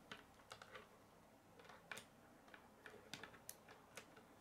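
About a dozen faint, irregular clicks of hard plastic K'nex rods and connectors knocking and snapping as a model's legs are repositioned by hand.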